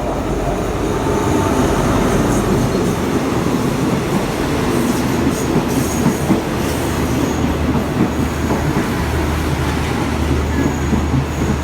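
A train running along the rails with a steady loud rumble, and faint high wheel squeals coming and going.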